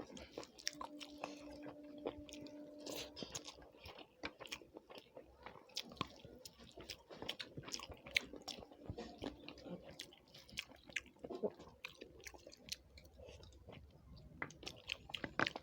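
Chewing and lip-smacking close to the microphone: a person eating a meal of rice and chicken curry, with many small wet clicks at an irregular pace.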